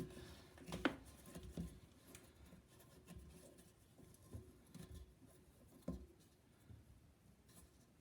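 Faint scattered clicks and rubbing of a toilet water supply hose's coupling nut being fitted and turned by hand under the tank, with one sharper click about a second in.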